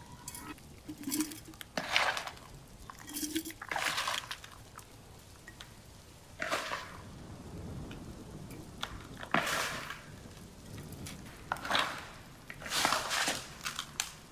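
Thai eggplants being handled in a bowl of water: irregular splashes and knocks against the bowl, one every second or two.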